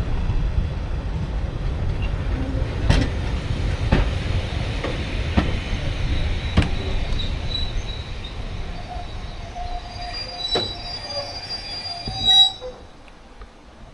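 Train running on the rails: a steady low rumble with occasional sharp clicks of wheels over rail joints, then thin, high wheel squeal through the second half. The sound peaks and drops off sharply about a second before the end.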